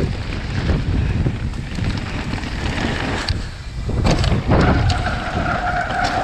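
Wind buffeting the camera's microphone as a mountain bike rolls fast over a stony dirt trail, with knocks and rattles from the bike over the bumps. About four and a half seconds in a steady whine begins and holds to the end.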